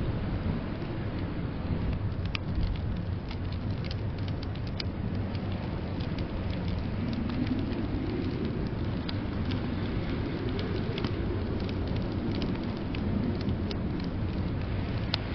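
Wood fire crackling in a fireplace: scattered sharp pops and clicks over a steady low rumble of storm wind.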